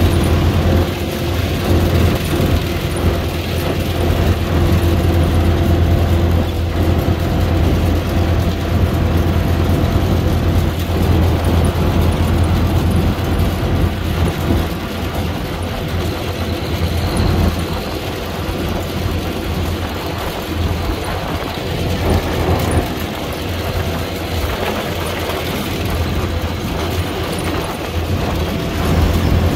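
International Harvester 321 combine harvester driving along a gravel track, its engine and machinery giving a steady, loud low drone, heard from the driver's platform.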